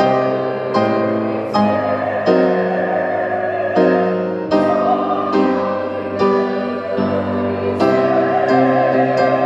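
Church choir singing a hymn with piano accompaniment, the piano chords striking roughly once a second.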